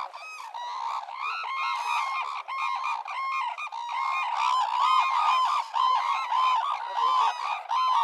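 A flock of red-crowned cranes calling: many short, pitched calls overlapping in quick succession, growing a little louder about halfway through.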